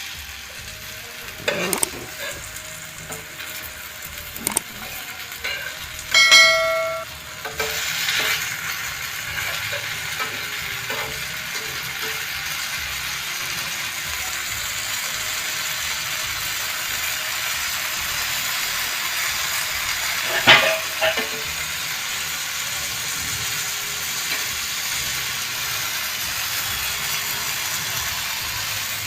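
Semolina-coated raw banana slices sizzling steadily as they shallow fry in oil, with a few knocks of a utensil against the pan, a loud ringing metal clang about six seconds in and another sharp strike around twenty seconds in.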